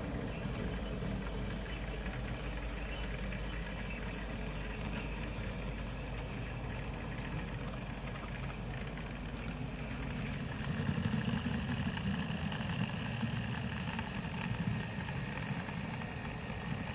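Model locomotive running sounds: a steady mechanical running noise as a model steam locomotive comes tender-first along the track. About ten seconds in the sound changes to a fuller engine-like idle with a steady high whine.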